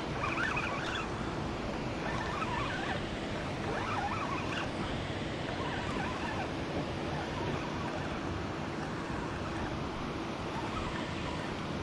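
Steady rushing noise of wind and water on an open boat.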